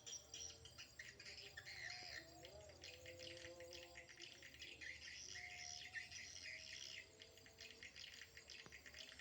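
Swiftlets twittering: a faint, dense chatter of quick high chirps.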